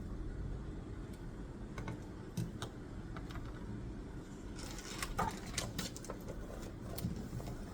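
Small, scattered clicks and taps of desk work over a steady low background hum, with a denser run of rustling clicks about five seconds in.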